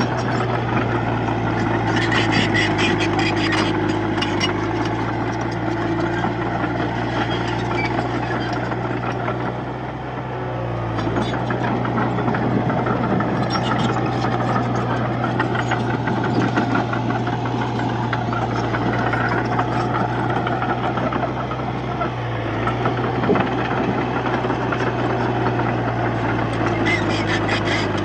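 Komatsu D31P bulldozer's diesel engine running steadily under load while pushing soil, with rapid metallic clatter from the tracks at times. The engine note dips briefly about ten seconds in and again a little past twenty seconds.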